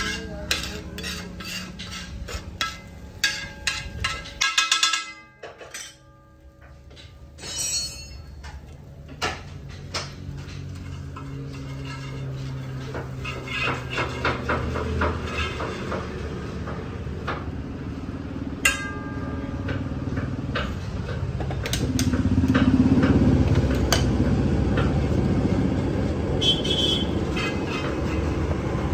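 Metal utensils clinking and knocking against a cooking pan in a run of sharp clinks, thinning out after the first few seconds. Under them is a low background rumble that grows louder in the second half.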